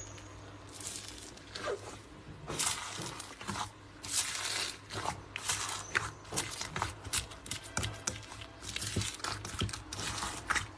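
Slime squeezed, stretched and pulled apart by hand, giving irregular crackles, pops and tearing sounds that come thicker in the second half.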